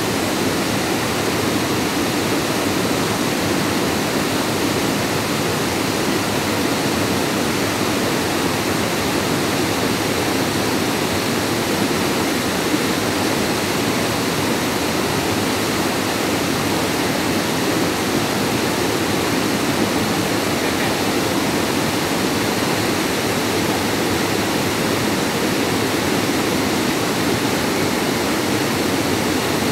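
Water rushing over small stepped travertine cascades on a creek: a loud, steady rush that holds the same level throughout.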